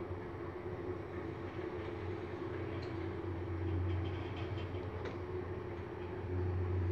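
Schindler 3300 machine-room-less passenger lift travelling down, heard from inside the car: a steady low hum from the drive and the moving car, with a couple of faint clicks partway through.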